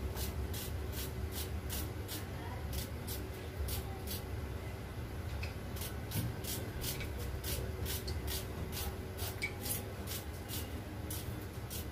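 Dry papery onion skins being peeled by hand, a run of short crackles and rustles about two or three a second, over a low steady hum.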